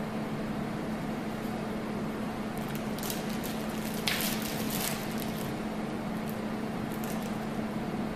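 Plastic sterile camera drape crinkling and rustling in gloved hands as it is unfolded, in irregular bursts that are loudest about four seconds in. A steady low hum runs underneath.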